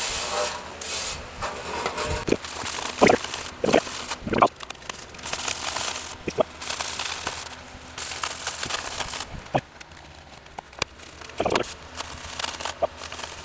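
Brief spray hiss from a can of brake cleaner near the start, then scattered irregular knocks, clicks and rubbing as the sanded metal burner pan is cleaned and handled.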